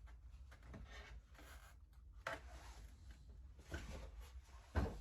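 Faint rustling of hands handling plastic dashboard parts, with a few soft clicks and knocks, one about two seconds in and another just before the end.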